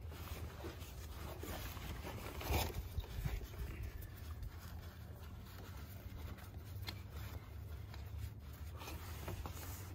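Canister oil filter housing cap on a Ram EcoDiesel being turned loose by hand: faint scraping and clicking, with one sharper knock about two and a half seconds in, over a steady low hum.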